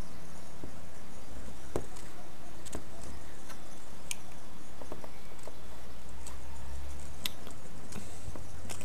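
Scattered light clicks and scratches as pond slider turtles' claws and shells scrape and knock against a plastic tank wall, over a steady low hum.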